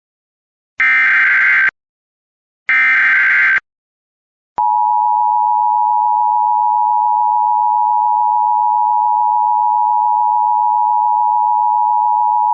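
Emergency Alert System tones: the last two bursts of the SAME digital header, shrill data chirps about a second each, a second apart. About four and a half seconds in comes the EAS attention signal, a loud steady two-tone beep at 853 and 960 Hz that holds for about eight seconds and then cuts off.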